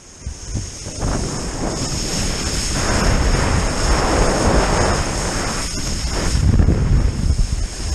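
Wakeboard carving across the water, its spray hissing, with heavy wind buffeting on the microphone; the hiss swells a few seconds in as the board cuts hard and throws up spray.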